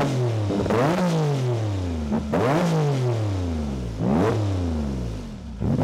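Porsche engine and exhaust revved hard about four times, each rev a quick climb in pitch and a slower fall back toward idle, with smaller throttle blips near the end.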